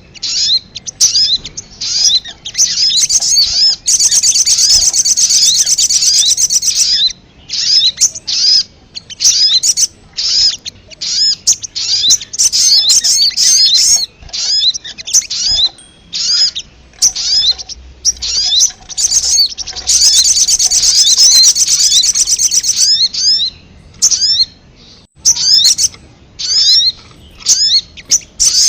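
Recorded lure call of the sogon (sogok ontong) bird: rapid runs of short, high, hooked chirps, twice breaking into a dense, buzzy chattering trill lasting about three seconds.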